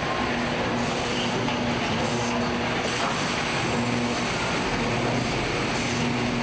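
Steady factory-floor machinery noise from a robotic pickup-truck assembly line, with a low hum that keeps coming and going and repeated short bursts of high hiss.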